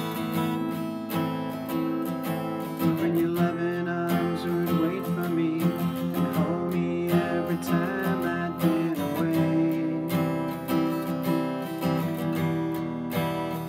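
Acoustic guitar strummed in a steady rhythm, full chords ringing on.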